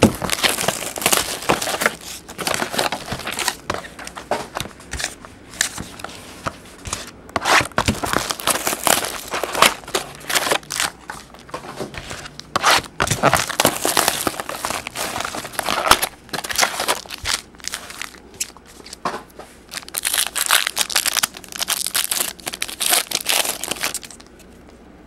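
Clear plastic shrink wrap crinkling and tearing as a 2011 Topps Finest baseball card box is unwrapped and opened, then the packs inside being handled. The crackling comes in repeated bursts and dies down shortly before the end.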